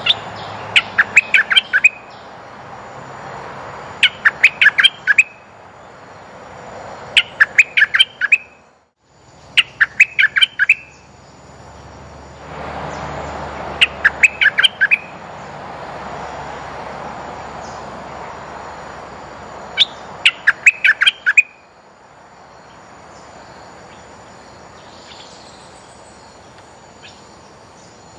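A bulbul singing short, fast phrases of sharp chirps, six phrases a few seconds apart: the lure song of a caged decoy bird.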